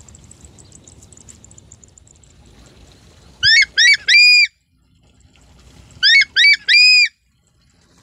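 A bird of prey calls twice, each call a quick series of three to four loud, shrill, arched notes, about three and a half seconds in and again about six seconds in.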